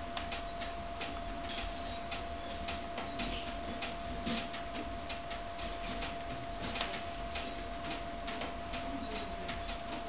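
Split logs burning in a glass-fronted fireplace, the wood crackling and popping in irregular sharp snaps several times a second. A thin steady tone runs underneath.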